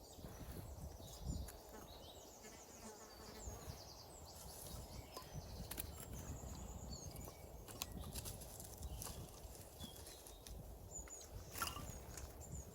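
Quiet outdoor background with a low steady rumble, scattered light clicks and knocks, and faint high chirps now and then.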